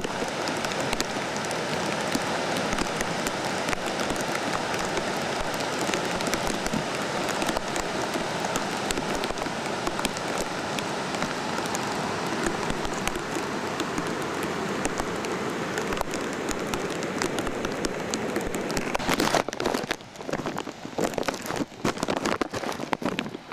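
Steady hiss of rain and rushing floodwater in a flooded desert wash. In the last few seconds, uneven gusts of wind buffet the microphone.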